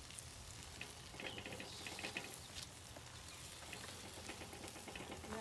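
Faint sizzling of chicken drumsticks on a charcoal kettle grill as barbecue sauce is brushed on, with short quick runs of ticks about a second and two seconds in.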